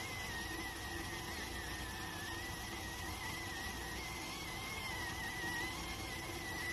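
Electric rice cooker whistling while it cooks: one thin, slightly wavering whistle held steadily over an even hiss.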